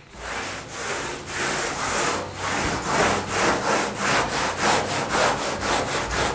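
Cloth rag rubbing back and forth over a truck's sheet-metal door panel, wiping in boiled linseed oil, in quick scrubbing strokes about three a second.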